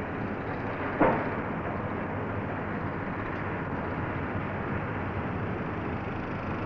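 Steady rumbling construction-site noise with one sharp knock about a second in, which rings briefly, heard as steel stressing cables are threaded into a concrete viaduct segment.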